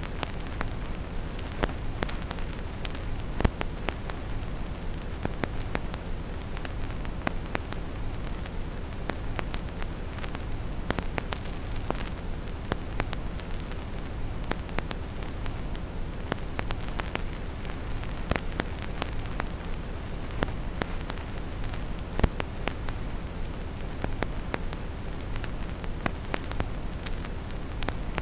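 Vinyl record crackle, an irregular scatter of small clicks and pops with an occasional louder one, over a steady deep brown-noise rumble.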